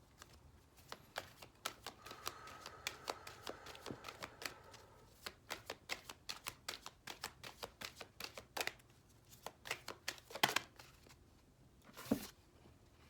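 Deck of numerology guidance cards being shuffled by hand: a quick run of soft card snaps, several a second, with a couple of louder slaps near the end.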